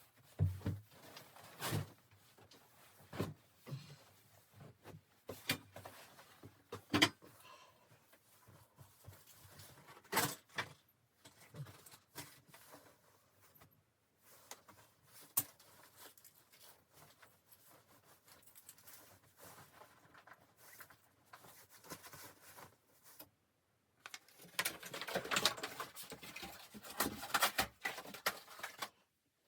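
Scattered knocks and clicks of things being handled, with a few seconds of denser rustling near the end.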